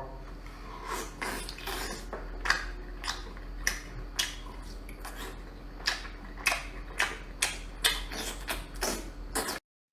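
Shellfish being eaten: a string of sharp, irregular clicks and cracks, roughly two a second, over a faint steady hum. The sound stops abruptly just before the end.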